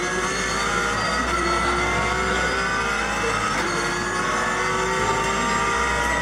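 Porsche race car's flat-six engine at full throttle, heard from the cockpit. Its pitch climbs in each gear and drops back at quick upshifts from second to fourth, near 8,000 rpm.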